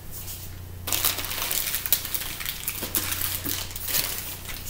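Clear plastic wrap on a handbag's handles crinkling and rustling as the bag is gripped and lifted, starting about a second in, over a steady low hum.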